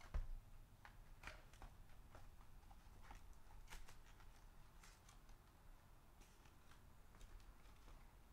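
Faint handling sounds from a 2021-22 Upper Deck SPX Hockey box being opened and its foil packs taken out: scattered soft clicks and rustles of cardboard and foil wrappers. There is a low thump just after the start.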